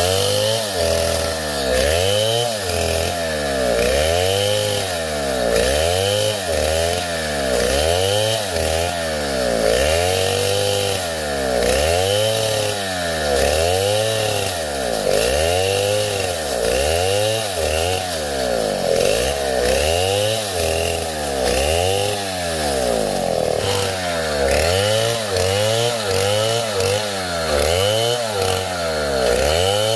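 Two-stroke chainsaw running hard, its engine pitch rising and falling in a steady cycle about once a second.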